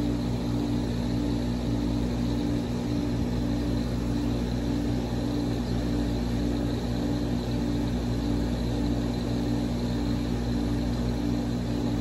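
Steady electric motor hum from running pool equipment, with several steady low tones and one tone that pulses faintly at a regular rate.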